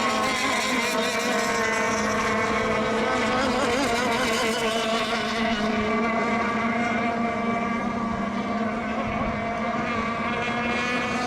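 Several radio-controlled racing boats running flat out together just after a race start. Their small engines make an overlapping buzzing whine whose pitches waver up and down.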